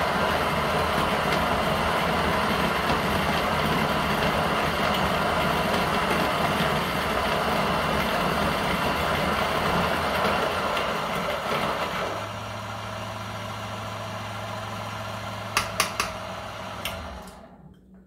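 Niche Zero conical burr grinder grinding a dose of espresso beans with a loud, steady grinding noise. After about twelve seconds it drops to a quieter, steady motor hum as the burrs run empty with the beans ground through. A few sharp clicks follow, and the motor stops near the end.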